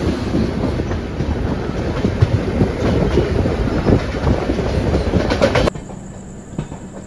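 Passenger train running along the track: a loud rumble with the clatter of wheels over rail joints. It cuts off suddenly near the end, leaving a much quieter steady hum.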